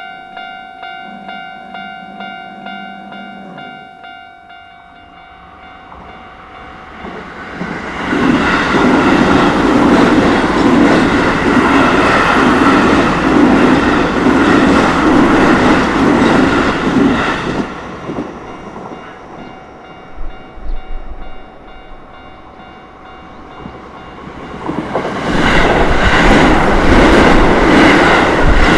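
A Japanese level-crossing warning bell rings in steady repeated strikes, about one and a half a second. About seven seconds in a train rolls through with loud wheel-on-rail noise for some ten seconds. The bell carries on more faintly afterwards, and another train starts passing near the end.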